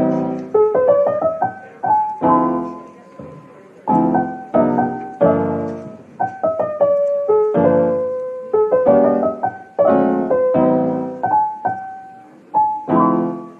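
Background music: a gentle piano tune, its chords struck one after another and left to ring and fade.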